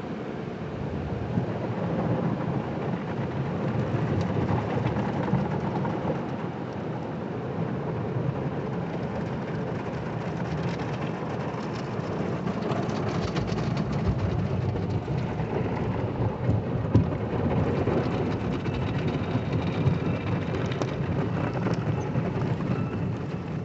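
Car wash water jets and soapy spray pelting a car's windshield and body, heard from inside the cabin: a steady rushing, rain-like drumming with a few sharp taps.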